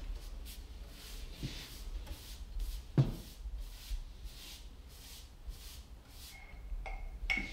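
Natural-bristle paintbrush stroking oil along the grain of an ash worktop: repeated soft swishes of bristles on wood, with a single low knock about three seconds in.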